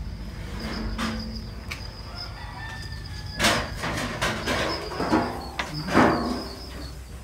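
Rooster crowing several times, against a steady high-pitched insect trill.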